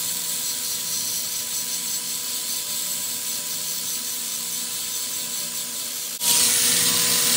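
Power grinder running steadily with a high whine, grinding a downpipe flange's face flat to take down a high spot that was causing exhaust leaks. The sound gets louder and harsher about six seconds in.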